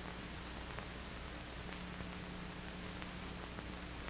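Steady hiss with a low mains-type hum and a few faint clicks: the background noise of an old optical film soundtrack.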